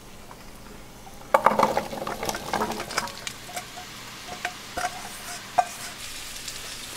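Chopped vegetables tipped into a skillet of hot melted butter, landing with a clatter and sizzle about a second in. A wooden spoon then stirs and knocks them around the pan over a light, building sizzle.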